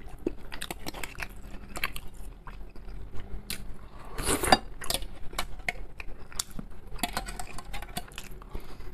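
Close-miked chewing and wet mouth clicks of someone eating soft canned mackerel, with light clicks of a metal fork against the tin near the end.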